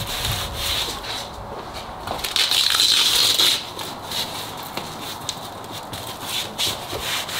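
Velcro strip on a Ford Bronco factory soft top being pulled apart and pressed back together with the stiff fabric rustling, a crackly rasping that grows louder for about a second around three seconds in.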